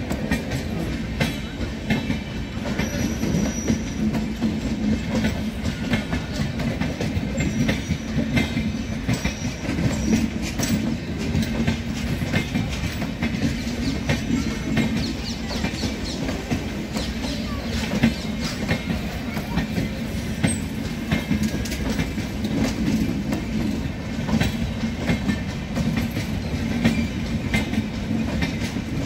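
Passenger coaches of an Indian express train rolling past, wheels clattering steadily over rail joints and points. A few brief faint wheel squeals come in the first part.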